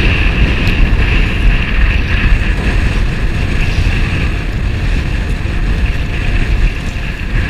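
Strong gusting wind, about 20 to 25 mph with gusts to 30–35, buffeting the microphone, over choppy sea water splashing and slapping against a sea kayak's hull.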